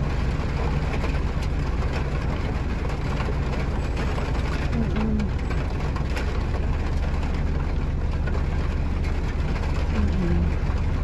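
Rain falling steadily on the roof and windshield of a delivery truck's cab, heard from inside, over the truck engine's low, steady idle.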